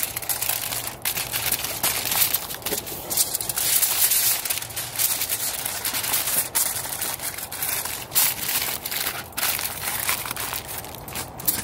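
Aluminium foil crinkling in a dense run of irregular crackles as it is folded and crimped by hand.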